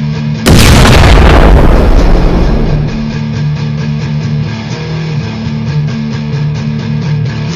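Background music with guitar and a regular beat. About half a second in, a sudden loud hit cuts in over it and fades away over about two seconds.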